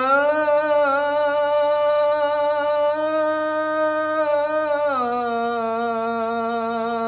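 A man's voice holding one long melismatic note of the dawn (Fajr) call to prayer, on the phrase "as-salatu khayrun min an-nawm" (prayer is better than sleep). The pitch lifts slightly about three seconds in, then steps down to a lower held note about five seconds in.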